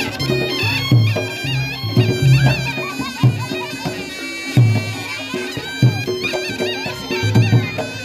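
Reog Ponorogo gamelan accompaniment: a slompret (shawm) plays a high, wavering, ornamented melody over repeated drum strokes and steady struck gong tones.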